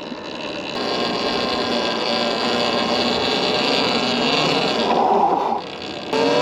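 Electric trail bike riding along, its motor whining under a haze of tyre and wind noise. Near the end the sound dips briefly, then the motor whine comes back, rising slowly in pitch as it speeds up.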